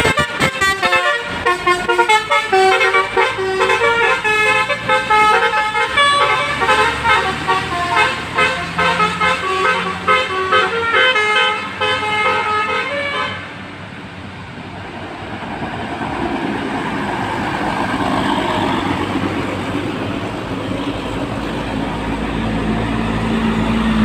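Tour bus basuri horn playing a quick melody in stepped, piercing horn tones for about thirteen seconds, then stopping suddenly. After it, bus engine and road noise, rising and falling.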